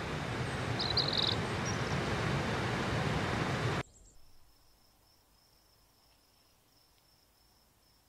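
Steady rushing of a waterfall, with a brief high chirp about a second in. The rush cuts off abruptly just before four seconds, leaving a faint, steady, high-pitched insect trill.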